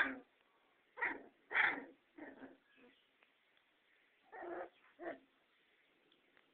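Bull terrier and Staffordshire puppies fighting, giving short yips and barks: a loud one right at the start, then a handful of shorter, quieter ones spread over the next five seconds with pauses between.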